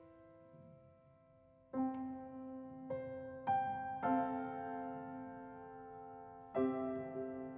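Background music: slow, soft piano. A few sustained chords are struck about a second or two apart, each ringing on and fading, after a quiet fading pause near the start.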